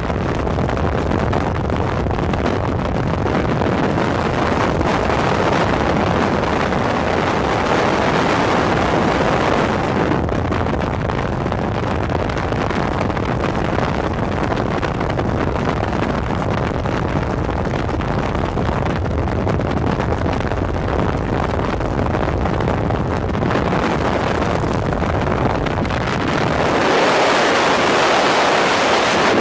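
Loud, steady rush of wind buffeting the microphone during a tandem skydive, typical of freefall. It swells briefly several seconds in and again near the end, when the low rumble thins out.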